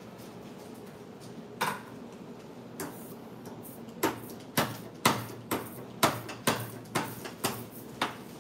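Hand ink roller (brayer) worked back and forth over an inked mimeograph screen to add more ink where the print came out too thin. It gives a sharp click at each stroke: one near the start, then a steady run of about nine, roughly two a second.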